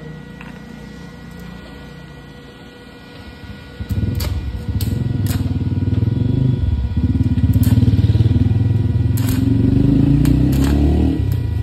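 An engine starts running close by about four seconds in, a loud low pulsing that rises slightly in pitch near the end before easing off, with a few sharp metallic clicks over it.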